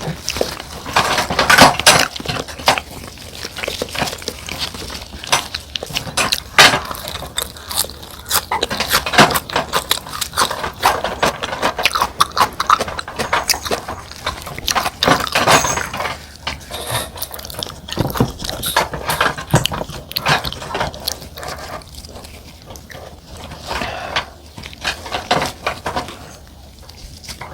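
Close-miked mukbang eating sounds: wet chewing and mouth sounds over soy-marinated salmon and rice, with utensils clicking against dishes in irregular bursts.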